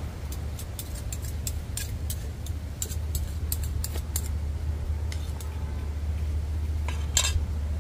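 Light metal clicks and clinks of cooking utensils at a pot: a run of quick irregular ones in the first four seconds and a sharper pair about seven seconds in, over a steady low rumble.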